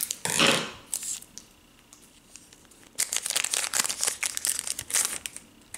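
Plastic wrapper of a hockey card pack crinkling as it is handled and pulled open: a short crinkle at the start, then a denser two-second run of crackling about three seconds in.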